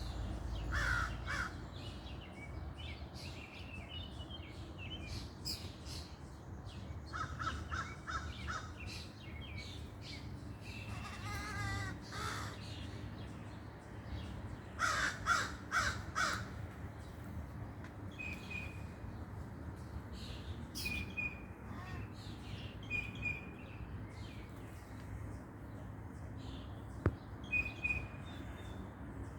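Crow making a run of unusual calls: short hoarse caws mixed with clicks and rattles, including a warbling rattle about twelve seconds in. Short high chirps join in the second half.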